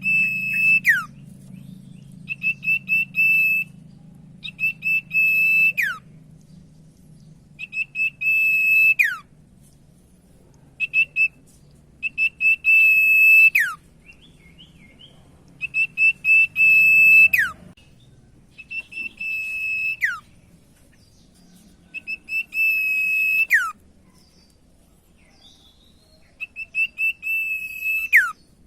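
Common iora (cipoh) singing: repeated phrases of quick whistled notes on one high pitch, each ending in a whistle that slides down. A new phrase comes every two to three seconds, over a faint low hum that stops about two-thirds of the way in.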